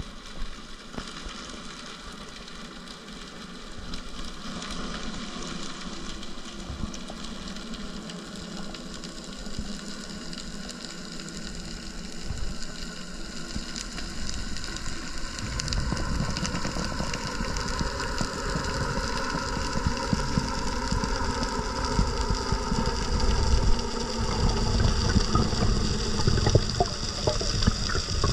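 Underwater sound heard through an action camera's waterproof housing: a steady hiss with several humming tones. A low rumble joins about halfway through, and the whole grows louder as the diver swims up toward the surface.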